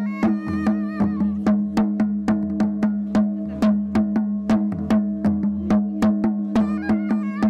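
Traditional Ladakhi folk dance music: regular drumbeats over a steady held drone, with a wavering melody line near the start and again near the end.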